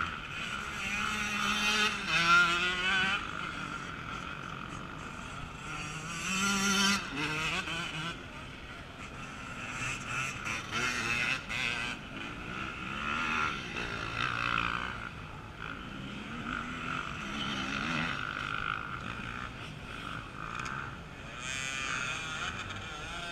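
Off-road enduro motorcycle engines revving up and down in uneven bursts as riders work their bikes through a log obstacle, with pitch swells about two seconds in and again near seven seconds.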